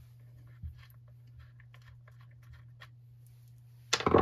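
Faint small clicks and scrapes of a screwdriver working out Torx screws from under a string trimmer's plastic fuel tank, then a louder short knock near the end as the tool or part is set down on the wooden bench.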